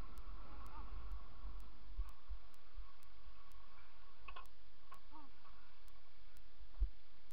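Low rumble of wind and rolling while riding a kick scooter over concrete and asphalt, with a faint regular ticking about twice a second. There is a small knock about two seconds in and another near the end.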